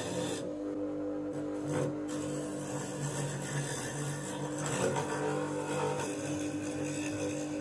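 Bench grinder motor running with a steady hum while a wood chisel scrapes and cuts a spinning laminated wooden wheel mounted on its shaft, turning it true as on a lathe. The cutting hiss breaks off about half a second in and comes back about two seconds in.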